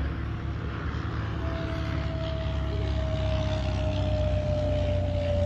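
A low engine rumble, with a single humming tone entering about a second and a half in and slowly dropping in pitch.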